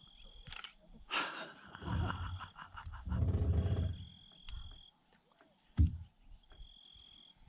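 A lion's low, drawn-out call, loudest about three seconds in and fading out by about four and a half seconds. A single sharp thump follows near six seconds.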